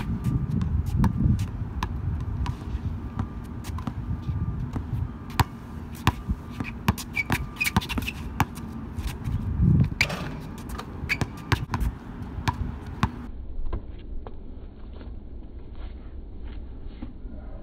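A basketball dribbled on a hard outdoor court: a run of sharp, irregularly spaced bounces, with a low rumble over the first couple of seconds.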